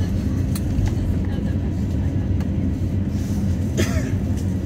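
Airbus A350-900 cabin noise while taxiing: a steady low rumble from the jet's engines at taxi power, with light clicks and rattles. There is a short, sharp noise about four seconds in.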